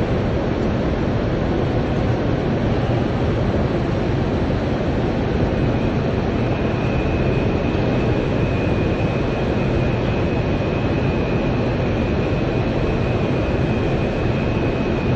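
Steady, loud industrial roar in a steel plant's furnace area, with a thin high steady whine joining about five seconds in.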